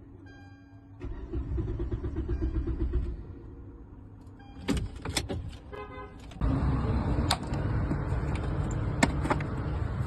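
Car engine cranking on the starter for a couple of seconds without catching, then, after a few clicks and a short beep, starting and running steadily.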